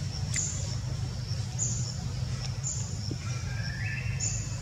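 Outdoor ambience: short high-pitched chirps repeating about once a second, with a fainter rising call about three seconds in, over a steady low rumble.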